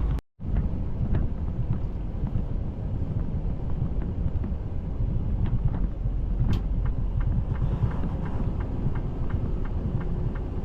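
Semi-truck running down the road, a steady low rumble of engine and road noise inside the cab. A regular light ticking, about three ticks a second, starts about halfway through.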